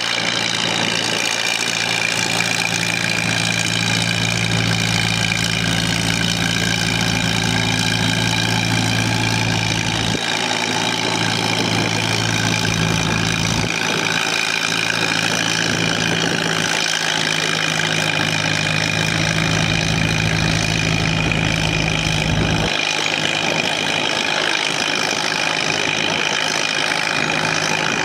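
1948 Minneapolis-Moline G tractor's four-cylinder engine running steadily under load while pulling a weight-transfer sled. Its deep note falls away twice, about a third of the way in and again past the three-quarter mark.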